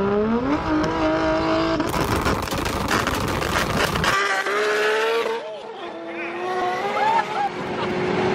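Toyota Supra MK4 engine revving hard under acceleration, its pitch climbing and then holding, with a loud rushing noise in the middle. About halfway through the sound thins out, and another run of rising revs follows.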